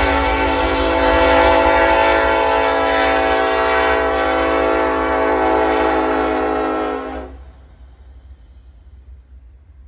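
A Norfolk Southern locomotive's air horn sounding one long, loud multi-note blast that cuts off about seven seconds in, after which only a low rumble continues.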